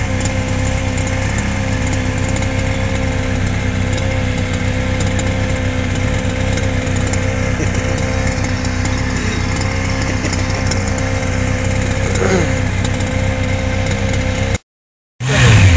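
Engines idling steadily at an even pitch: a Honda CBR600 sport bike and the small petrol engine of an FG large-scale RC model car. The sound cuts out completely for about half a second near the end.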